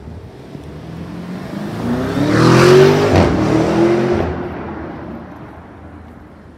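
Lamborghini Urus's twin-turbo V8 accelerating hard away from a standstill, its engine note rising, dropping at a gear change about three seconds in, then rising again and fading as the car drives off.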